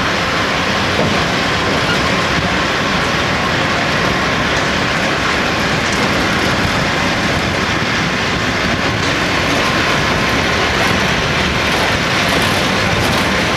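Steady running noise of an open-sided road tram in motion, the motor of its towing cab and its tyres on the paved road, with a faint constant whine and no pauses or changes.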